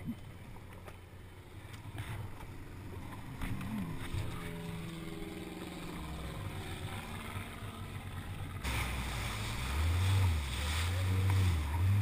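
Kawasaki Ultra LX jet ski's four-stroke engine idling low, then opened up about nine seconds in, with a rush of water as the craft gets under way.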